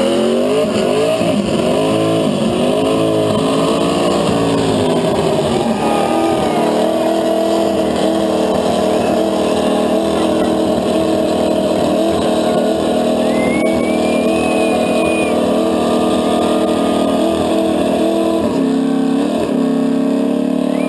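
Nissan 350Z's 3.5-litre V6 revving hard during a burnout: the revs swing up and down several times at first, then hold at a steady high pitch for about twelve seconds, dip briefly near the end and climb again.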